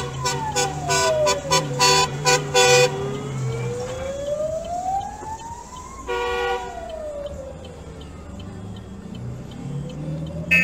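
Fire engine siren wailing slowly up and down, one rise and fall every six seconds or so. Loud horn blasts are repeated in the first three seconds, with another blast about six seconds in.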